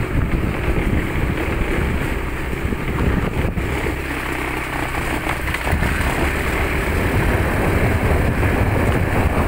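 Motor scooter running steadily while being ridden.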